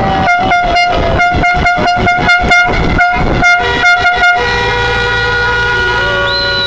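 Vehicle horns honking in a celebrating convoy: rapid short toots, several a second, for about four seconds, then the horns held in a long steady blast, with a higher horn joining near the end.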